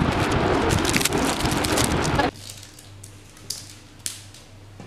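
A heap of rubber bands being scooped up and let fall onto a glass tabletop: a dense crackling patter that cuts off abruptly a little over two seconds in. After that there is only faint room noise with a few soft clicks.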